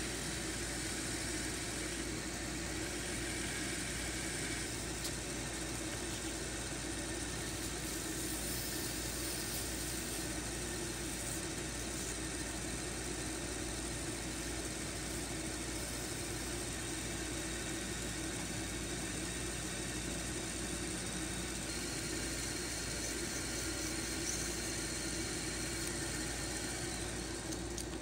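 Small cue lathe motor running steadily, with a constant hum, while a sanding block and sandpaper are held against the spinning cue tip to shape it.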